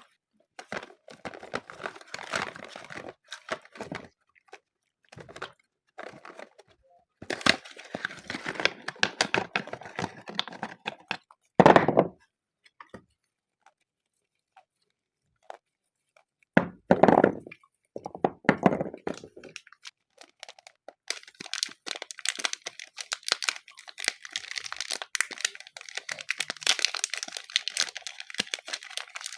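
Soap bars being unwrapped: packaging crinkling and tearing in irregular bursts, with two heavier thunks about twelve and seventeen seconds in. The crinkling runs on without a break over the last eight seconds.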